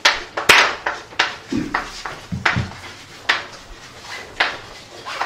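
Chalk on a blackboard as words are written: an irregular run of sharp taps and short scratching strokes, several a second.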